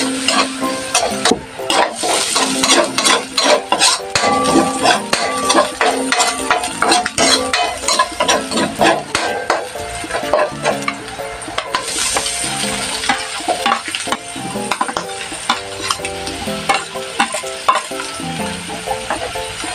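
Sliced onion and garlic frying in oil in a metal wok, stirred with a metal spatula: quick scrapes and taps of the spatula against the pan over a steady sizzle. About twelve seconds in, the sizzle grows louder and the scraping becomes sparser.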